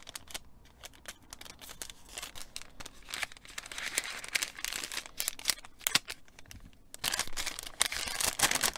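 Scissors snipping through a thin paper gift bag, then the paper rustling and crinkling as the bag is pulled open, louder in the last couple of seconds.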